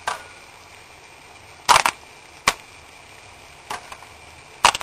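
A few sharp, hard clacks of mussel shells knocking against each other and the metal pan as they are settled into the sauce. The loudest come as quick doubles about two seconds in and near the end, over a low steady background.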